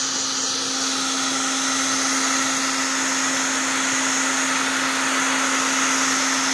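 Black & Decker heat gun running on its high setting: a steady blowing hiss of fan and hot air with a constant low hum.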